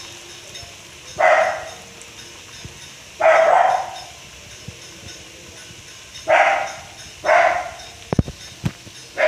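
A dog barking about five times, single barks one to three seconds apart, over the steady sizzle of chops deep-frying in hot oil. Two short knocks come just after the fourth bark.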